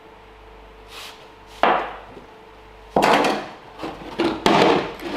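A series of sudden knocks and clatters of hard objects being handled and set down, about five in all, the loudest around three and four and a half seconds in.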